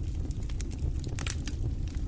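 Wood fire burning in a stone fireplace: a steady low rumble of the flames with frequent sharp, irregular crackles and pops.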